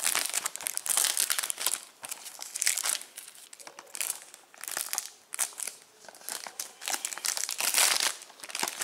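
Clear plastic shrink-wrap crinkling as it is peeled off a Blu-ray case. The crackling comes in irregular bursts, loudest in the first second or so and again near the end, with quieter handling between.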